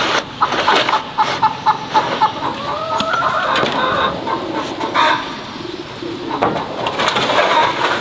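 Chickens clucking, a quick run of short notes in the first two seconds with a longer rising call over them. Two sharp knocks come a few seconds in.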